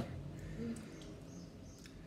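Faint wet mouth sounds of a lime wedge being sucked after a hot chile, opening with a sharp click and carrying a short hummed 'mm' about two thirds of a second in.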